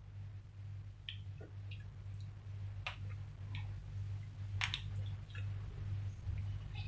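Tempering frying in hot oil in a pan, with mustard seeds, chana dal, curry leaves and broken dried red chillies: faint scattered pops and crackles, about one every second or two, over a steady low hum.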